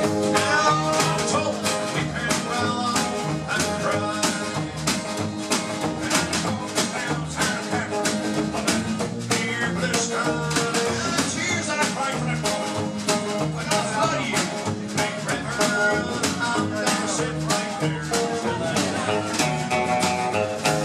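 Live country band playing a song with a steady beat.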